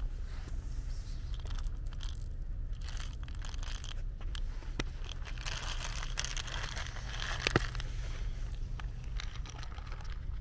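Dry cat kibble rattling out of a plastic bottle onto asphalt, with a sharp click about seven and a half seconds in, and a cat crunching the kibble as it eats.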